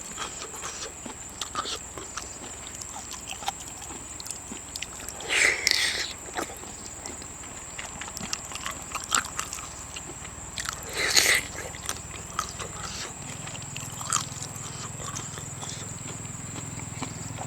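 Close-up eating: a person chewing seafood, with many small wet clicks and mouth smacks and two louder, longer noisy bursts about five and eleven seconds in. A steady high-pitched whine sits under it.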